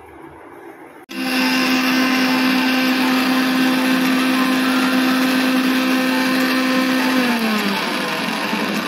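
Electric kitchen mixer grinder with a small stainless-steel jar, held down by hand, running at full speed. It starts suddenly about a second in and runs steadily, then its motor pitch drops as it slows near the end.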